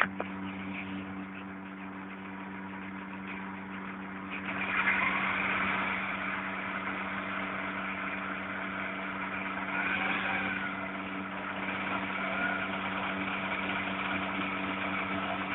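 VW Polo 1.2 three-cylinder petrol engine running with a misfire caused by a faulty coil pack. The engine note gets louder about four and a half seconds in.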